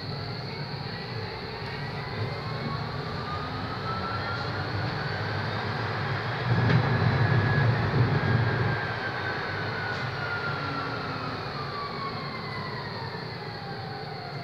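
Electric tram running, heard from inside the car: its motor whine rises in pitch as it picks up speed, holds, then falls away as it slows. Over it runs the steady rumble of the wheels on the rails, louder for a couple of seconds in the middle.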